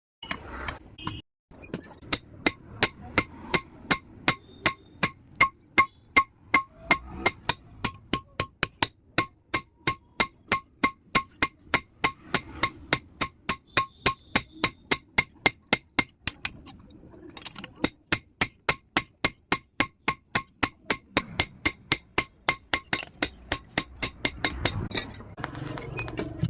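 Blacksmith's hammer beating an axe head on an anvil in a steady rhythm of about three blows a second, each a sharp metallic clang with a ringing tone. The hammering breaks off for about a second midway, then resumes.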